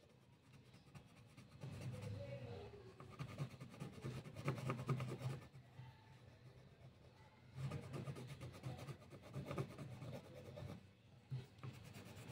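Coloured pencil scribbling back and forth on paper while shading in, in two spells of quick strokes with short pauses between them.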